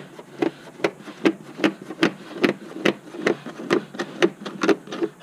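A steady run of short, sharp clicks and taps, about two or three a second, as hands press and pat the plastic trunk sill trim and its rubber weatherstrip seal back into place.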